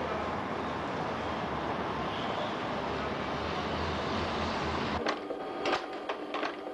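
Steady city traffic noise of cars driving along a street, with a low rumble. About five seconds in it cuts off abruptly and gives way to a quick run of sharp clicks and clatters.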